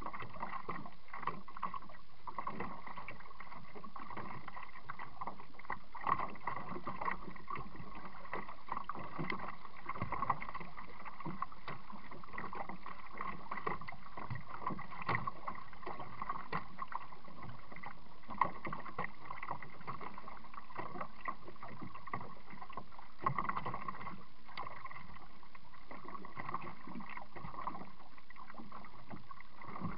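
Kayak being paddled, heard muffled through a waterproof camera housing mounted on the boat: water sounds and scattered small knocks over a steady hum.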